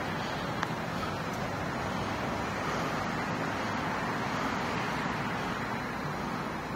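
Steady outdoor road-traffic noise, with a single faint click less than a second in.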